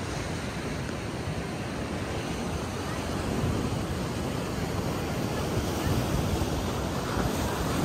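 Ocean surf washing onto a beach: a steady rushing noise that swells a little louder a couple of times as waves come in.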